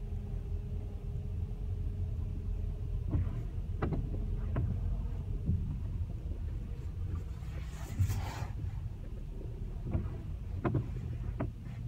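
Car driving slowly over deep, rutted snow, heard from inside the cabin: a steady low rumble from the engine and tyres, with scattered knocks and thumps and a brief hissing rush about eight seconds in.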